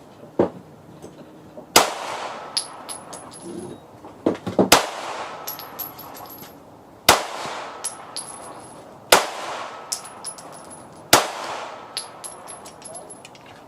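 Glock pistol fired single shots, five in all, about two seconds apart. After each shot comes a light metallic tinkling, the ejected brass casings landing.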